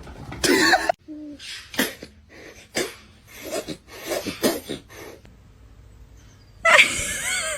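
A pet animal calling: a series of short separate cries, then a louder, longer cry that wavers in pitch near the end.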